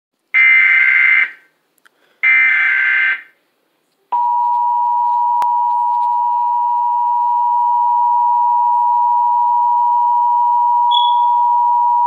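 Emergency Alert System test tones from a television: two roughly one-second bursts of warbling digital header data, then, about four seconds in, the steady two-tone EAS attention signal, holding for about eight seconds.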